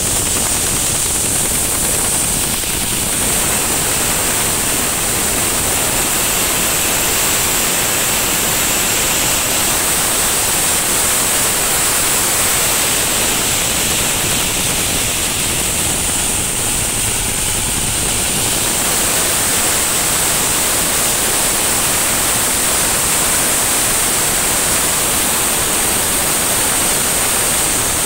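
Stationary diesel engine running steadily under load, belt-driving a coffee huller, with dried coffee rattling and hissing through the machine in a dense, even din and a steady high whine on top.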